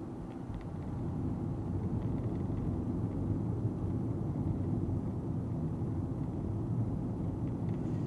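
Steady low road and tyre rumble inside the cabin of a moving Nissan Note e-POWER, growing a little louder about a second in.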